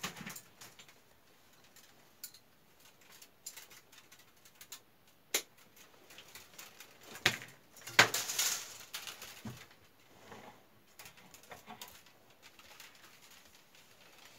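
Willow rods being woven by hand into a conical basket: scattered rustling, creaking and sharp clicks as rods are pushed through the stakes and pressed into place. The loudest click, followed by a brief rustle, comes about eight seconds in.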